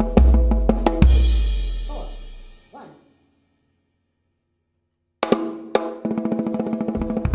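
Acoustic drum kit played with sticks: quick snare strokes over bass-drum beats, ending about a second in on a crash whose ring dies away. After about two seconds of silence, fast runs of snare strokes in five-stroke groupings start again, with a bass-drum beat near the end.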